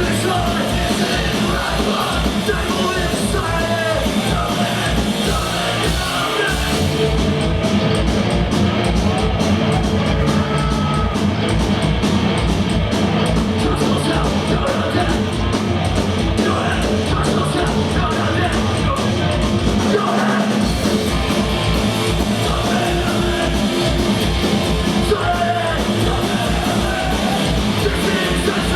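Punk rock band playing live at full volume: distorted guitars, bass and fast, driving drums, with shouted vocals.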